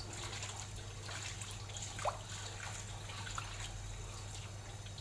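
Kitchen tap running into a metal wok as it is rinsed, water splashing and trickling in the pan.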